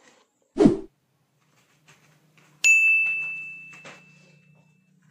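A short low whoosh, then about two seconds later a single bright ding that rings out and fades over about two seconds: an edited-in transition sound effect.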